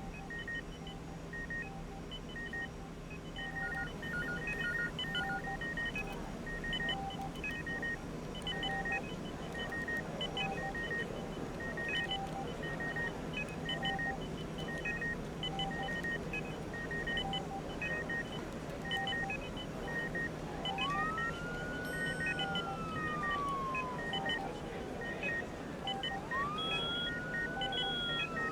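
Medical equipment beeping in overlapping patterns of short tones at several pitches, over a steady low hum and background noise. About twenty seconds in, a siren wails twice, each time rising quickly and then falling slowly.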